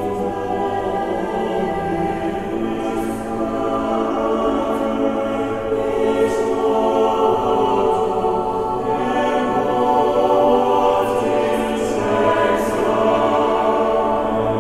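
A choir singing slow, sustained chords.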